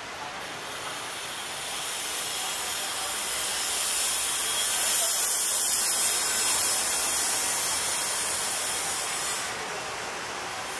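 A steady high hiss, like a fan or blower, that swells to its loudest around the middle and eases off near the end.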